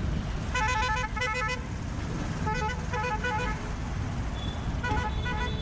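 A vehicle horn sounding in rapid pulsed beeps, in three bursts of about a second each, over the steady low rumble of road traffic.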